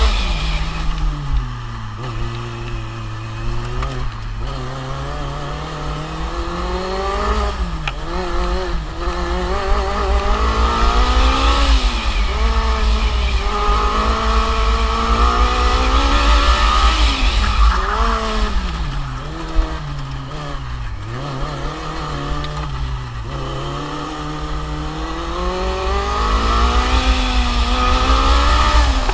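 Formula Student race car's engine heard onboard, its pitch dropping and climbing several times as the driver brakes and accelerates through the corners, over low wind buffeting on the microphone.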